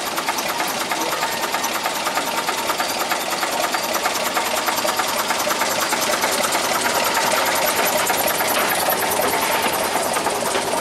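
Small Motor Rail narrow-gauge diesel locomotive engine running with a rapid, even knocking clatter as the loco pulls past. The sound holds steady and grows a little louder past the middle.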